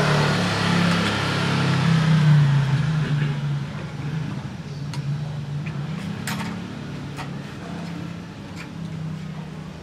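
A motor vehicle engine running, loud at first and fading over several seconds, with a few light clicks later.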